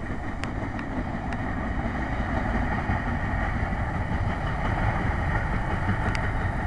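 Low rumble of a freight train's last cars rolling away down the track, mixed with wind buffeting the microphone. A few faint sharp clicks come in the first second or so and again near the end.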